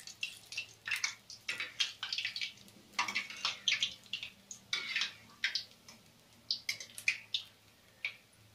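Urad dal vadas deep-frying in hot oil in a steel kadai: irregular crackling and spitting, busiest in the first half and thinning out toward the end.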